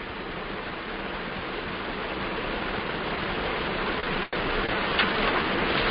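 Steady hiss of background noise that slowly grows louder, drops out for an instant about four seconds in, with a few faint ticks near the end.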